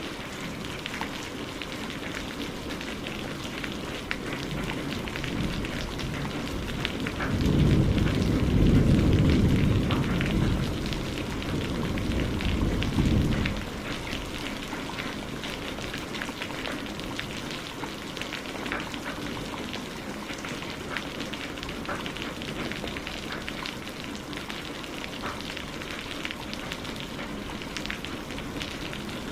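Steady rain falling, with a fine patter of drops. About seven seconds in, a low rumble of thunder swells up and dies away by about fourteen seconds.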